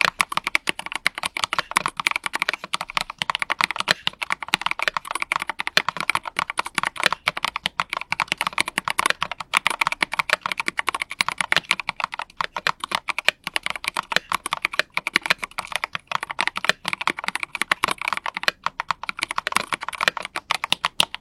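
Typing test on a mechanical keyboard fitted with tall JSA-profile PBT double-shot keycaps: a fast, continuous stream of keystrokes, many per second, that stops right at the end.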